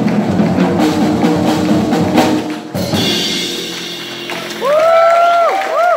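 Jazz piano trio (grand piano, double bass and drum kit) playing the closing bars, stopping together about two and a half seconds in and leaving the final chord ringing. Applause starts, and near the end a listener lets out two loud rising whoops.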